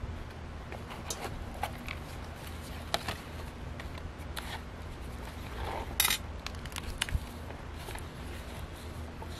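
A thick handmade paper journal being handled, laid down and opened: paper pages and tags rustling with scattered light clicks and taps, one sharper knock about six seconds in, over a low steady hum.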